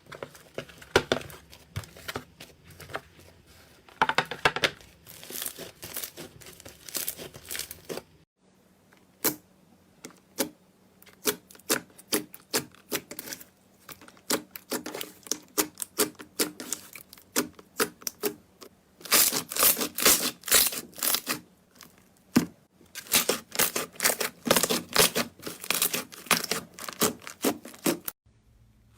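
Slime being squished and worked close to the microphone, giving dense runs of crackling clicks and pops, with a clean break about a third of the way in and again near the end.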